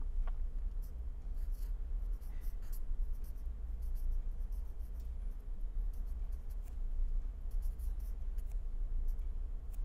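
Pen writing on paper: short scratchy strokes as words are written out by hand, over a low steady hum.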